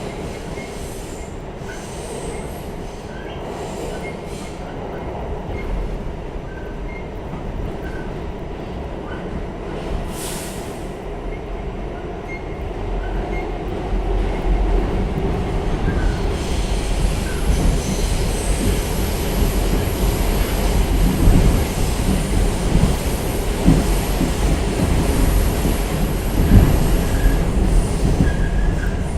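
R46 subway train in motion, heard from inside the car: a steady rumble of wheels on rail that grows louder about halfway through.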